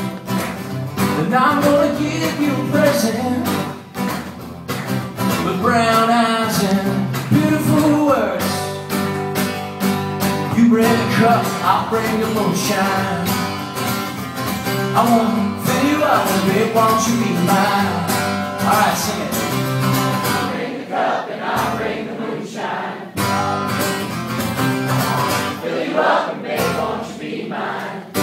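Live acoustic guitar strumming, with singing.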